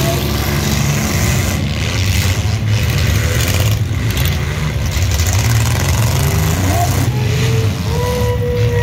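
Several compact demolition-derby cars' engines running and revving together in a steady, dense rumble, rising and falling as the cars drive around the arena.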